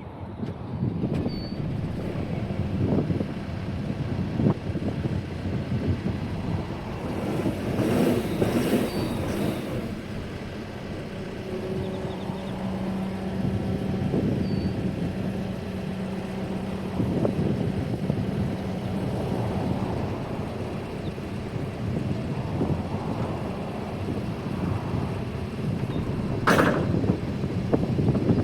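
Case 580N EP backhoe's diesel engine running steadily. A brief louder rushing noise comes about eight seconds in, and a short sharp sound near the end.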